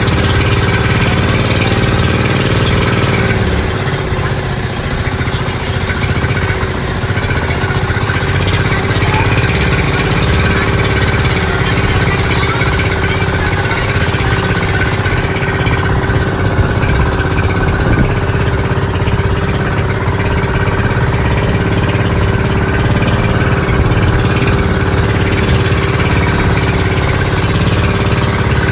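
Engine of a motorized bamboo outrigger boat (bangka) running steadily and loudly, with a slight drop in pitch about three seconds in.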